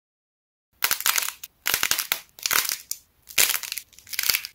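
A clay fried-egg figure with a hard glossy white shell crackling as hands squeeze and bend it, its surface breaking up. The crackling comes in about five bursts, starting about a second in.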